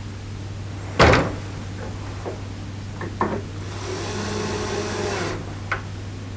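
A cordless drill-driver whirs for about a second and a half near the end, driving a screw into the wooden cabinet at a door hinge. It is preceded by one sharp knock about a second in and a few light clicks.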